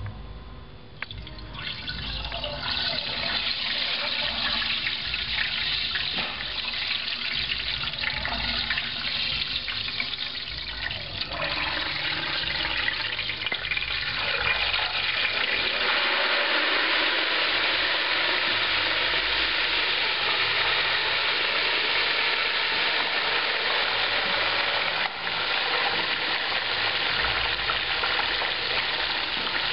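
Hot cottonseed oil sizzling and bubbling in a turkey fryer pot as a whole 20-pound turkey is lowered into it. The sizzle starts about a second and a half in, grows in steps, and is loudest and fullest from about halfway on.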